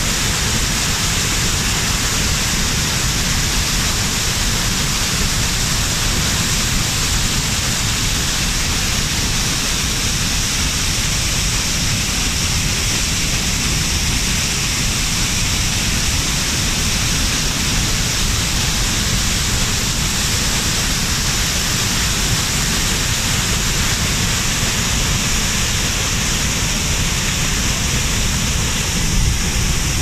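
A broad river cascade in flood: brown floodwater pouring over the rock steps with a loud, steady rush of water.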